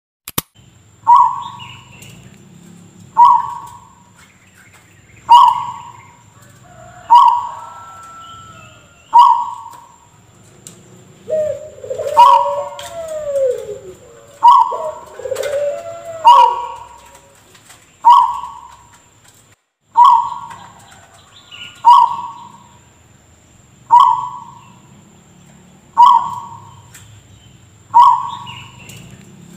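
Zebra dove (perkutut) giving a single short, cough-like call about every two seconds, each starting sharply and fading quickly. A few lower, sliding calls come in between the coughs around the middle.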